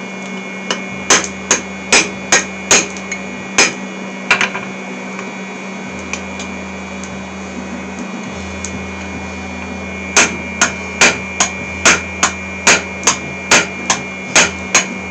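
Hammer driving a hand punch through hot mild steel on the anvil to punch the hinge's holes: sharp metallic strikes in two runs, roughly two to three a second, with a pause of several seconds between them.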